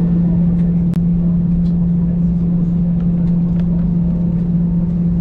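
Steady drone of an Airbus A320 heard inside the cabin as it taxis with its engines running, with a strong low hum throughout. One sharp click comes about a second in.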